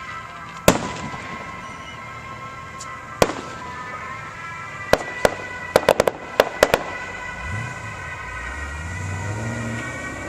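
Fireworks shells bursting: a sharp bang about a second in, another a few seconds later, then a quick run of about eight crackling reports around the middle.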